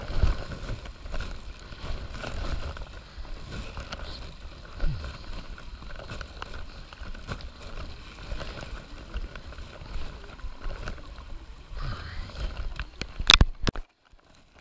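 Footsteps on wet stone trail steps, irregular low thuds over a steady rustling haze of wind and handling noise on a body-worn camera. A sharp click near the end, then a sudden brief drop-out to near silence.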